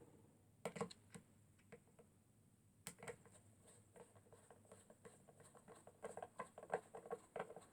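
Light, irregular clicks and taps of small parts being handled, sparse at first and then several a second near the end.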